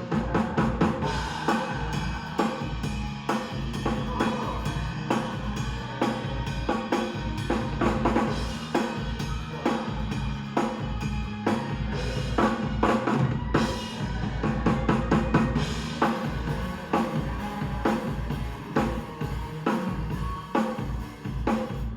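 Drum kit played to a steady beat with bass drum, snare and cymbals, along with a song's backing track.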